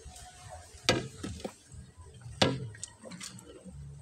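A long bar striking a split rock twice, two sharp ringing knocks about a second and a half apart, with a few lighter knocks of stone in between and after.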